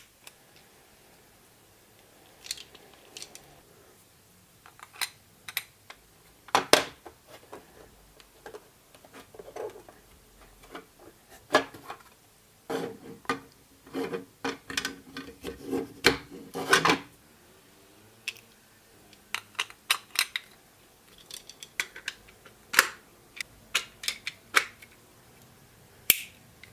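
White plastic parts of a Wool Jeanie magnetic yarn holder clicking and knocking as they are handled and fitted together, a metal rod being pushed into a plastic sleeve among them. Scattered sharp clicks and taps, busier for a few seconds past the middle.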